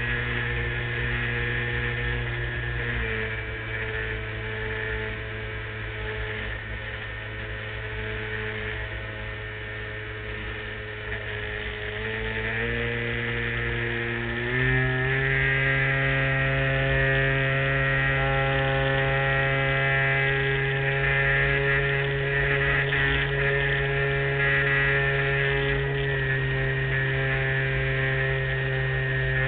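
The motor and propeller of a LazyBee radio-control model airplane in flight, heard close up from its wing: a steady hum. It drops in pitch about three seconds in, then rises in two steps around twelve and fifteen seconds in as the motor speeds up, running louder after that.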